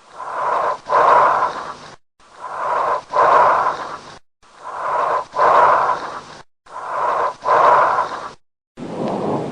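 Recorded breath sounds: four breath cycles about two seconds apart, each a rush of air in two parts with a brief break between them, the second part louder. Near the end a lower, different-sounding breath starts.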